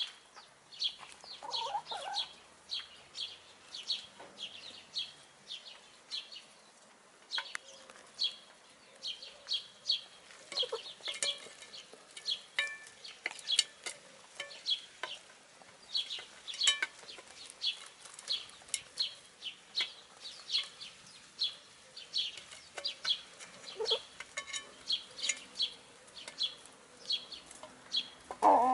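Hens pecking food scraps from a metal pan: a steady, irregular run of quick sharp beak taps, two or three a second, with a few low clucks, the loudest near the end.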